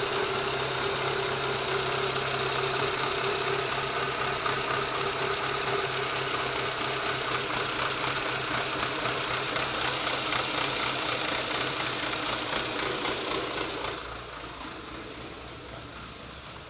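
Renault Symbol 1.2 16V engine idling with a rattling, uneven running, recorded close over the engine bay; the owner complains the engine shakes at idle once it warms a little. About fourteen seconds in the sound drops to a muffled, quieter level as the recording moves away from the engine.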